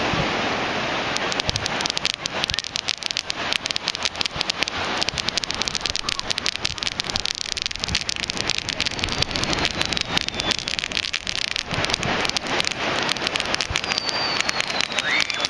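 Fireworks crackling: a dense run of sharp pops, many a second, starting about a second in. A thin whistling glide sounds near the end.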